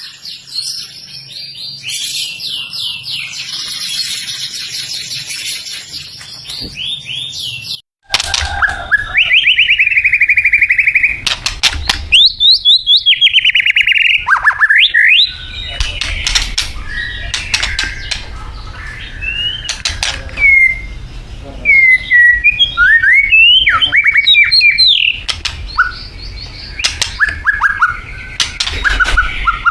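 White-rumped shama singing a varied song of whistled glides, rapid repeated trills and sharp down-slurred notes. It is quieter at first, then about eight seconds in, after a brief break, the song becomes louder and fuller.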